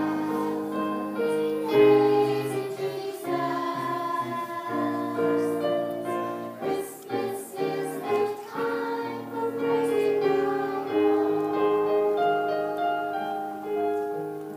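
Young children singing together as a choir with piano accompaniment, the song tapering off near the end.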